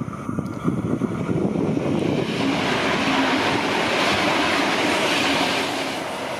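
An NSW TrainLink Xplorer diesel multiple-unit train passing close at speed. The rush of wheels on rail and the underfloor engines builds to a loud peak about three to five seconds in, then eases off.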